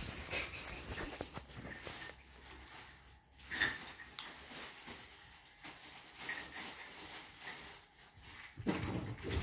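Soft rustling and small handling clicks on bedding, with a few faint, short high squeaks from a baby monkey; the rustling grows louder near the end.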